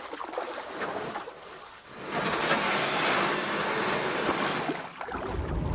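Water sloshing and splashing around a kayak as it is paddled: faint small splashes at first, then a steady hiss of water about two seconds in that stops abruptly some three seconds later.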